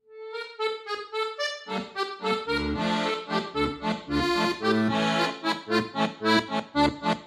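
Instrumental intro music: a lone melody line, joined by bass notes and chords in a steady rhythm about a second and a half in.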